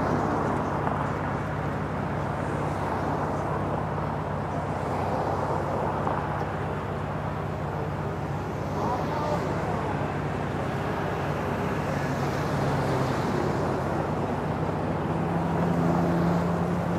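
A GT40 replica's engine idling steadily while the car sits stopped, a low even hum that gets a little louder near the end, with street traffic passing.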